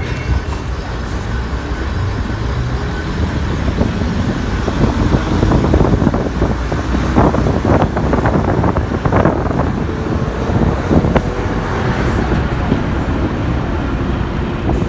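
Class 101 diesel multiple unit heard from inside the carriage: its underfloor diesel engines working as the train picks up speed, growing louder over the first several seconds, with wheels clicking over rail joints from about five seconds in.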